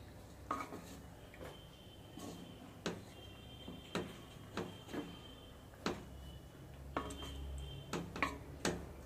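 A cooking utensil clinking against a pan while lemon rice is stirred: about a dozen sharp knocks at uneven intervals over a low background hum.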